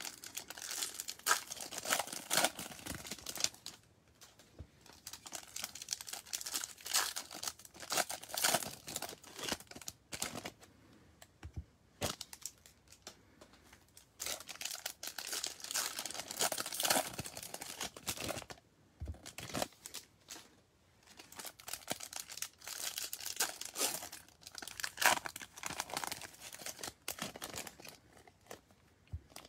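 Foil wrappers of baseball card packs being torn open and crinkled, in four bursts of crackling with short quiet gaps between.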